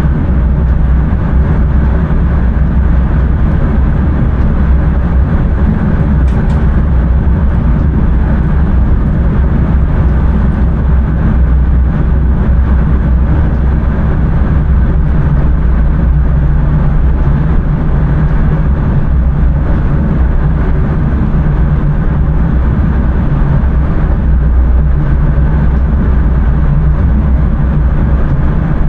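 Steady running noise of an intercity train under way, heard inside the driver's cab: a constant low rumble from the wheels on the rails and the running gear.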